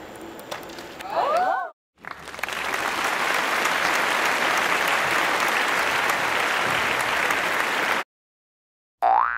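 A group of people clapping and applauding steadily for about six seconds, then cutting off abruptly. Before it there is a short excited voice, and right at the end a springy cartoon boing sound effect starts.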